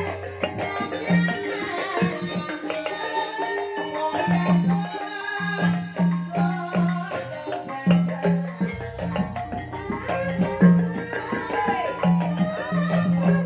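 Javanese Banyumasan gamelan music in the ebeg style, played through a sound system: a repeating low struck-note pattern under a busy pitched melody with rattling percussion.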